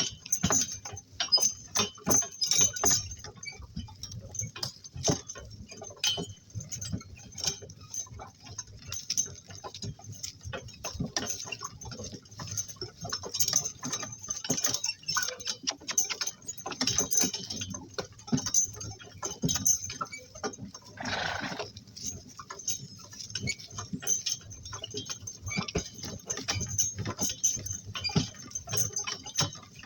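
Donkey cart on the move, drawn by a pair of donkeys: a steady run of irregular clicks, clinks and knocks from hooves, harness and cart. A short rasping noise comes about two-thirds of the way through.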